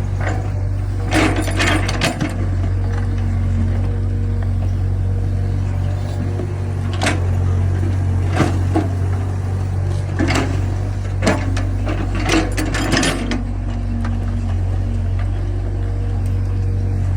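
Sinorn excavator running: a steady low diesel drone with a steady whine that comes and goes as the hydraulics work, and repeated sharp metallic clanks and knocks, some in quick clusters.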